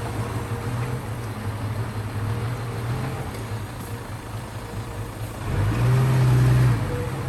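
Heavy diesel engine of earthmoving equipment running steadily, growing louder and lower for about a second near the end as it comes under load.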